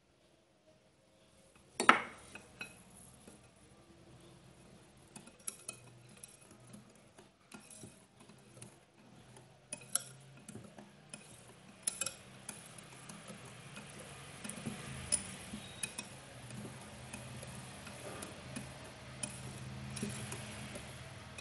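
Wire whisk stirring batter in a glass bowl, its wires ticking and clinking against the glass as melted margarine is mixed in. A sharp clink on the bowl about two seconds in is the loudest sound.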